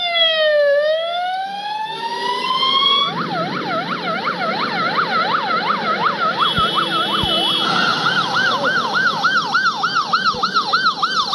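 Ambulance sirens. A slow wail falls and then rises over the first three seconds, then switches to a fast warble of about three cycles a second. From about eight seconds a second siren overlaps at a different pitch, cycling faster, about four times a second.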